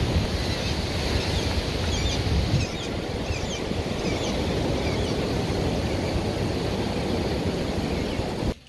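Ocean surf washing on a sandy beach with wind rumbling on the microphone, and a few short bird chirps about two to four seconds in. The sound cuts off sharply just before the end.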